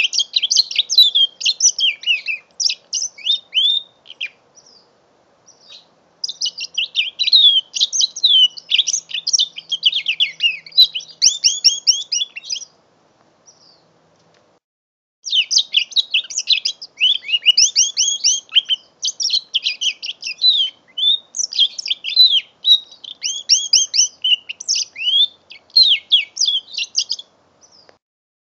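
Five-month-old mule canary (a canary–finch hybrid) singing in three long spells of fast trilled twittering, with short pauses between them.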